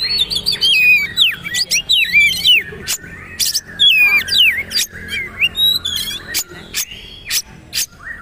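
Oriental magpie-robin (kacer) singing: a varied run of whistled notes that slide up and down, mixed with sharp clicking notes.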